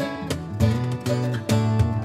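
Background music: a strummed acoustic guitar over steady low bass notes that change about every half second.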